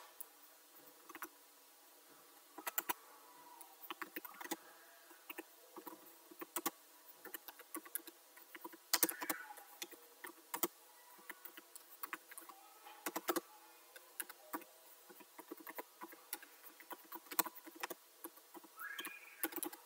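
Computer keyboard typing: faint, irregular runs of key clicks with short pauses between bursts.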